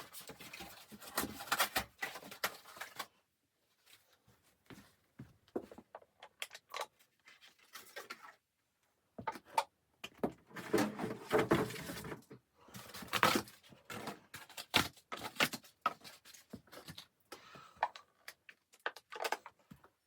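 Irregular handling noises indoors: clusters of rustling, clicks and small knocks, broken by short silent gaps.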